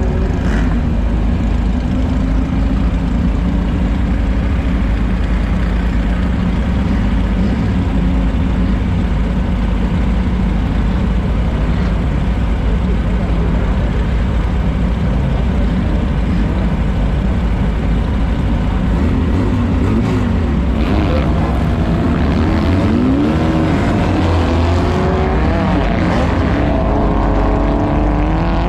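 Off-road race car's engine running hard and steady at speed. In the last third its pitch rises and falls several times as it revs up and down.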